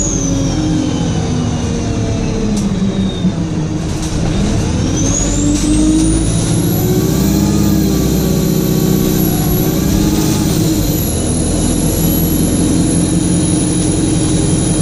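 Stagecoach bus diesel engine running with a high-pitched turbocharger whine. The whine falls away in the first second, climbs steeply again from about five seconds in as the engine pulls, and wavers before holding high and steady.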